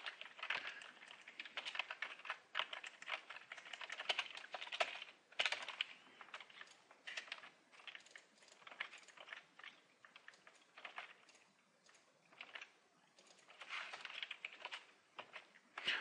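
Typing on a computer keyboard: quick runs of key clicks, thinning out for several seconds in the middle before picking up again.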